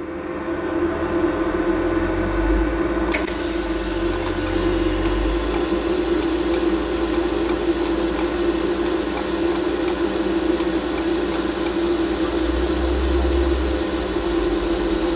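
A TIG welding arc from a GTP inverter welder strikes suddenly about three seconds in, after a low hum, and runs as a steady hiss and buzz. The current was a little too high, which the welder eases by pulsing the foot pedal.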